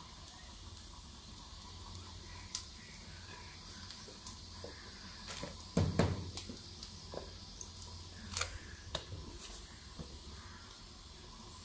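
Quiet handling sounds of bowls and cloth: scattered light clicks and knocks, with a louder thump and rustle about six seconds in as a cloth is laid over a clay bowl of kneaded dough.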